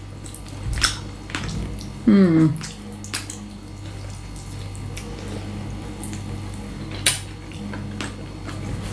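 Scattered clicks and clinks of cutlery and dishes while eating roasted chicken, the sharpest about seven seconds in, over a steady low hum. A short falling vocal sound about two seconds in.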